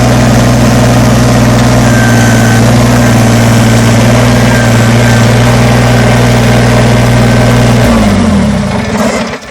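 Kubota BX compact tractor's three-cylinder diesel engine idling steadily, then switched off about eight seconds in, its pitch sinking as it winds down to a stop.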